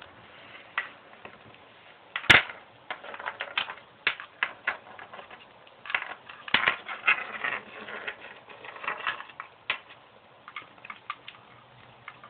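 A hamster gnawing and crunching a dry cracker: a string of irregular sharp cracks and clicks, with the loudest crack about two seconds in.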